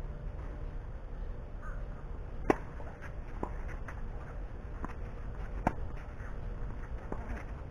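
Tennis ball struck by racquets during a singles rally: two sharp pops about three seconds apart, with several fainter ball knocks in between.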